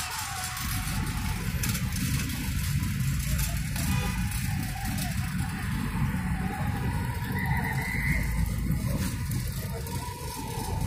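Street traffic: cars driving and turning through an intersection, heard as a continuous low-pitched engine and road noise.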